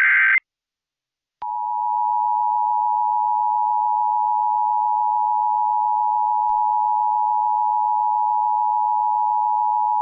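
Emergency Alert System broadcast signal: the tail of a SAME digital header burst cuts off right at the start, a second of silence follows, and then the EAS two-tone attention signal begins about a second and a half in and holds steady. It heralds a severe thunderstorm warning activation.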